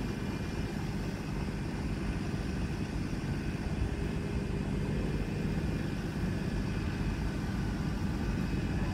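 An EMD GP38-2 diesel-electric locomotive with its 16-cylinder two-stroke EMD 645 engine runs steadily with a low, even drone. Fainter steady tones sit above it.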